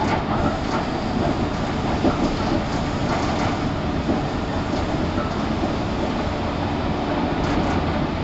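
Interior running noise of a 115 series 1000 subseries electric train, recorded in motor car KuMoHa 115-1005: a steady rumble of wheels and running gear on the rails, with a few light clicks.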